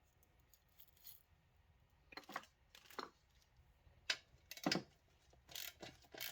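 Scattered light clicks and knocks, about half a dozen spread through, from hard plastic and metal parts of a mechanic's stool's worn caster wheels being handled.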